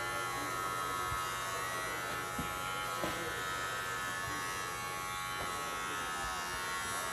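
Electric hair clippers running with a steady buzz as they are pushed across a man's scalp, cutting his close-cropped hair.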